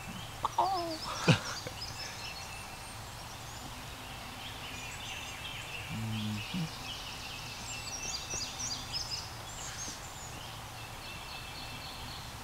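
Wild songbirds chirping and trilling in woodland. About a second in there is a brief louder call falling in pitch, followed by a sharp knock.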